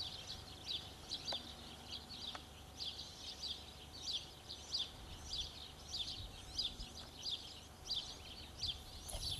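Small birds chirping over and over: short, high chirps that slide downward, about two or three a second, over a low rumble.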